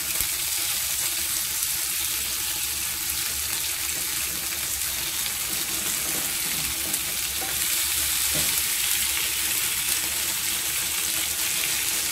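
Black cod steaks frying in an oiled grill pan: a steady sizzle.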